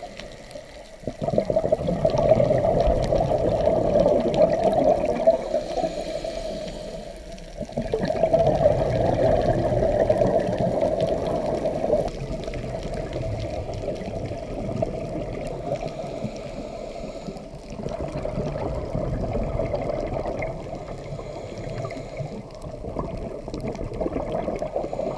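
Scuba diver's exhaled bubbles and regulator gurgling, heard underwater through the camera housing, in surges a few seconds long with short lulls between breaths.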